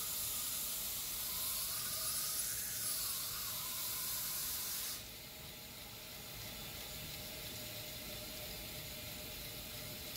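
A 2x72 belt grinder running slowly with a 1200-grit belt, a knife edge drawn back and forth against it with a steady hiss while the burr is thinned down. About five seconds in the hiss drops and stays quieter as the blade comes off the belt, which keeps running.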